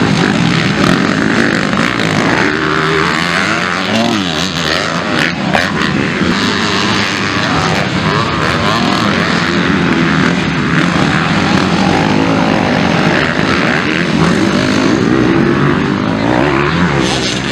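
Several motocross bikes racing, their engines revving up and down through the gears as they pass and jump, with pitches rising and falling and overlapping.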